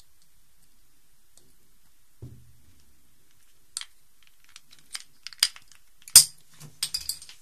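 Plastic Rubik's cube pieces, slippery with soap, clicking and tapping as they are handled and pushed back into the cube. A run of short clicks starts about four seconds in, with a louder knock about six seconds in.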